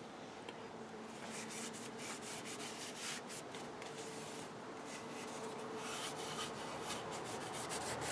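Oil-soaked paper towel rubbing over cedar wood: faint, irregular wiping strokes, starting about a second in, as oil is worked into the grain.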